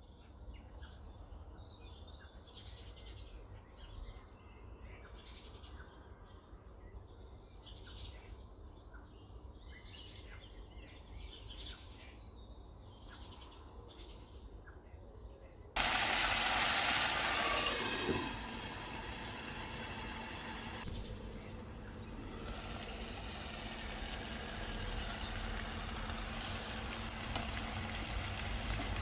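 Marinated chicken strips sizzling in oil in a non-stick frying pan, with irregular crackles at first. About two-thirds of the way through the sizzle suddenly becomes much louder and fuller, then settles into a steady frying hiss as the juices bubble in the pan.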